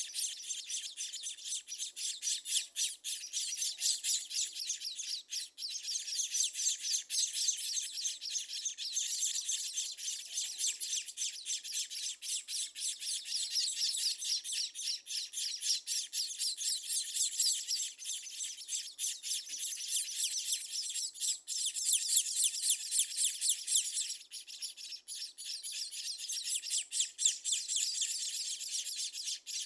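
Scaly-breasted munias chirping in a continuous rapid chatter of thin, high-pitched notes.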